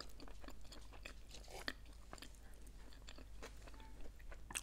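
Close-miked chewing: a person eating crunchy nacho chips, with scattered soft crunches and mouth clicks and a sharper crunch near the end.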